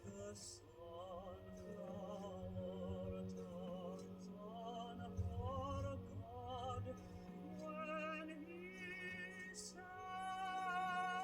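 A vinyl record playing on a record player: an opera-style melody with strong vibrato, in several phrases, with faint surface crackle from the disc.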